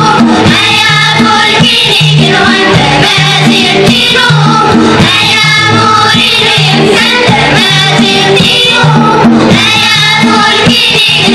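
Children's choir singing an Amazigh song over a steady beat, accompanied by banjo and hand drum.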